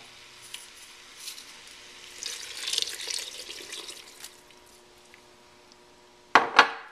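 Water poured from a glass measuring cup into a pressure cooker pot of thick curry, a soft splashing pour lasting about two seconds. Near the end comes a brief, loud, double sound.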